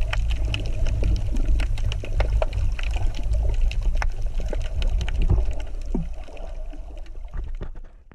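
Underwater sound from a camera held just below the surface: a steady low rumble of moving water with many scattered sharp clicks and crackles, fading out at the end.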